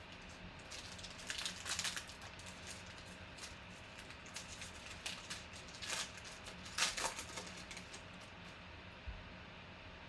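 Foil wrapper of a 2020 Panini Mosaic basketball card pack crinkling and tearing open by hand. There are two bursts of crackling, about a second and a half in and again around six to seven seconds in, with light rustling and ticks between.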